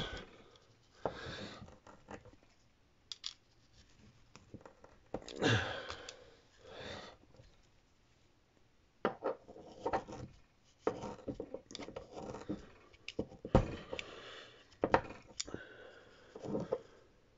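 Brass wool being torn apart and packed tight into a small metal pipe fitting with a screwdriver: irregular scratchy rustling of the wire strands, broken by sharp clicks and scrapes of the screwdriver against the fitting.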